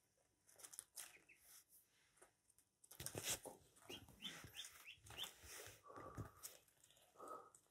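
Ducklings peeping faintly while they peck at ground corn on newspaper: a quick run of short rising peeps about halfway through, among soft taps and rustling of the paper.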